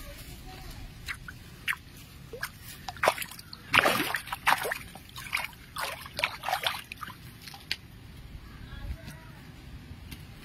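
A crowd of fish splashing and sloshing as they jostle at a pond's surface, in a run of irregular splashes that is busiest midway and thins out near the end.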